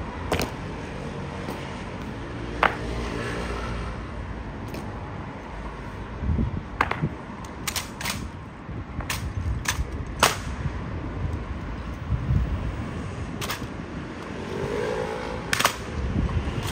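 Sharp, irregular cracks from an honor guard's drill: boots stamping and rifles striking and being slapped in the manual of arms, about ten hits spread unevenly, over a steady low rumble.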